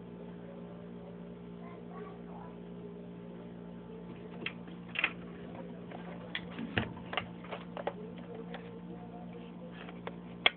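Scattered sharp clicks and clacks of a Crosman 357 air pellet pistol's metal and plastic parts being handled and fitted back together, the louder ones about halfway through and near the end, over a steady low hum.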